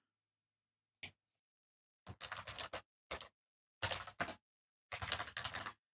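Typing on a computer keyboard: a single click about a second in, then four short runs of keystrokes.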